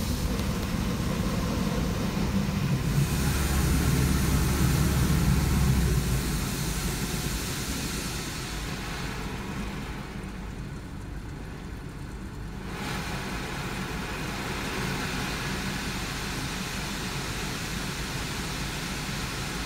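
Muffled rumble and hiss of automatic car wash machinery and water, heard from inside the car's cabin. It is loudest for the first six seconds, then dies down to a quieter steady hum of the car idling.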